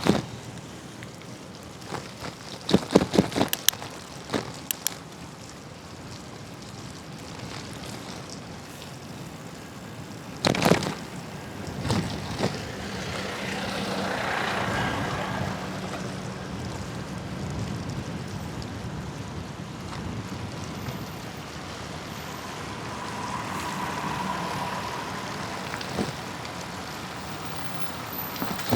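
Street traffic going by with wind noise, heard from a moving bicycle, the noise swelling as vehicles pass about a third of the way in and again later. Short sharp knocks and rattles come in clusters in the first few seconds and again about ten seconds in.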